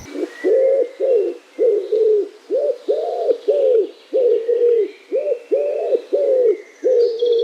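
A dove cooing in a quick series of about a dozen short, arched coos.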